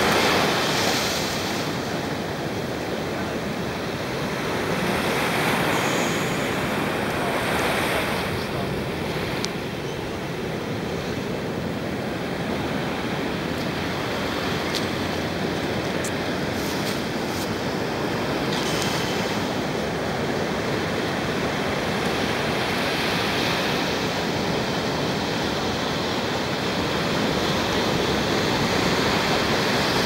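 Small waves breaking and washing up on a sandy beach: a steady rush of surf that rises and eases every few seconds.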